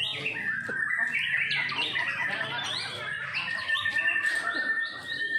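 Caged songbirds, white-rumped shamas among them, singing at once in a dense chorus of short chirps and calls. A high, steady whistled note holds from a little past the middle.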